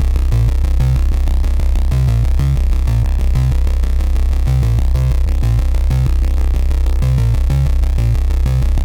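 Electronic background music with a steady deep bass and a fast repeating synthesizer pattern.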